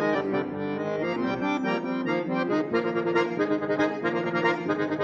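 Accordion (syrnai, the Kazakh accordion) playing a folk tune: a melody over sustained chords, with quick note changes in the second half.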